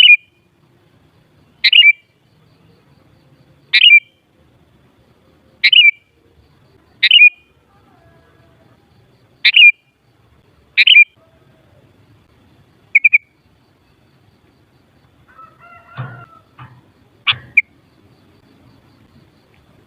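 Sooty-headed bulbul (kutilang) giving short, sharp calls, one about every two seconds. A lower, broader sound joins in briefly about three-quarters of the way through.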